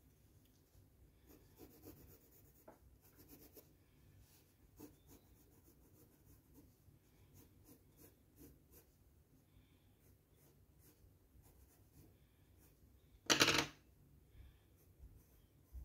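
Crayola coloured pencils scratching softly on sketchbook paper in short, uneven shading strokes, with one brief, louder rustle near the end.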